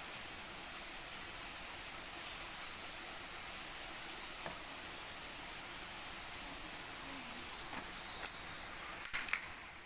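Steady high-pitched buzzing of forest insects such as crickets or cicadas over a constant even hiss, with a short click about nine seconds in.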